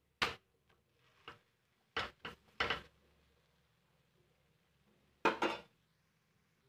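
Metal spatula scraping and knocking against a flat iron tawa in a few short bursts, with near silence between them.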